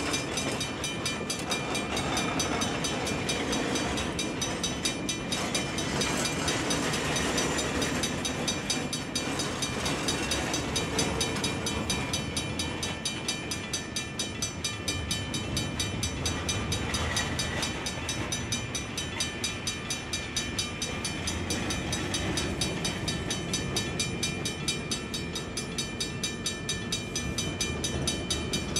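Railroad cars rolling slowly past, their wheels running on the rails, while a grade-crossing signal bell rings steadily with a fast, even beat.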